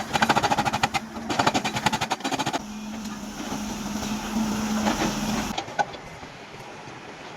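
Excavator-mounted hydraulic breaker hammer pounding rock in rapid blows, more than ten a second, in two runs with a short pause between them. It stops a little over two seconds in, leaving the excavator's diesel engine running steadily. After about five and a half seconds the sound drops to a quieter, steady engine hum.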